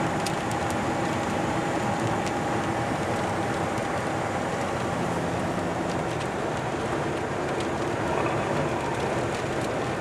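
Strong storm inflow wind rushing steadily past the microphone, with a faint steady hum under it.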